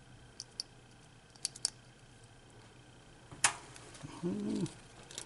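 Small sharp plastic clicks and taps of tiny motor-wire connectors being worked into a micro quadcopter's flight controller plugs, with the loudest click about three and a half seconds in. A brief hummed grunt from a voice follows it.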